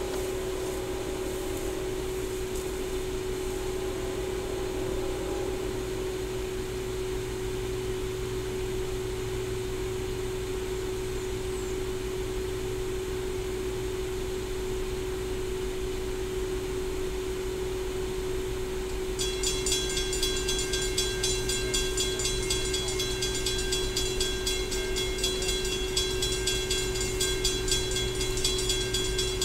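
A distant coal train approaching but not yet in sight: a steady low drone. About two-thirds of the way in, a high, rapidly pulsing ringing joins it.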